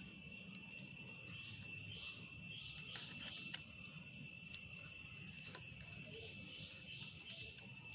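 Faint scraping and clicking of a screwdriver driving a screw into a PVC wiring-pipe elbow, with one sharp click about three and a half seconds in, under a steady high-pitched hum.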